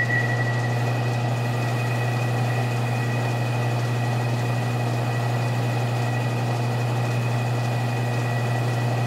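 Metal lathe running steadily with a cutting tool taking a chamfer cut on a rifle barrel's muzzle, throwing off curling metal chips. A steady motor hum with a faint high whine runs over it.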